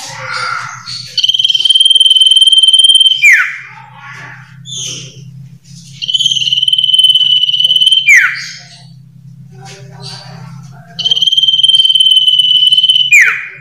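Iora (sirtu, cipoh) singing: three long, steady high whistles of about two seconds each, each ending in a sharp downward slur, with softer chattering notes between them. A steady low hum runs underneath.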